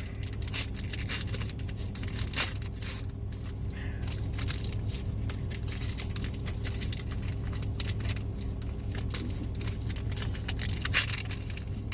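Foil Pokémon booster pack being torn open and crinkled, with many short crackles as the wrapper and cards are handled, over a steady low hum.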